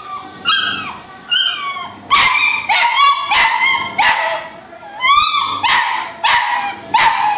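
Labrador puppy yelping over and over in short, high-pitched cries that drop in pitch, a few spaced calls at first, then about two a second from about two seconds in. The puppy is crying to be fed.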